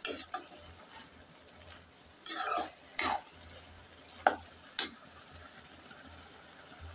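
Steel spoon stirring cabbage and potato bhaji in a metal kadai: a handful of irregular scrapes and clinks of spoon against pan, the longest a drawn-out scrape about two and a half seconds in.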